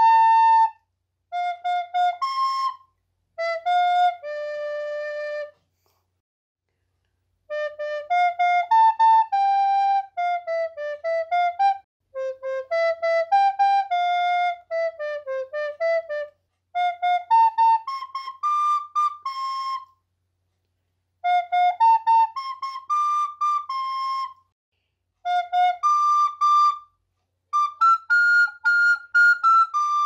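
Soprano recorder playing a slow melody, one note at a time stepping up and down, in short phrases with full silences between them.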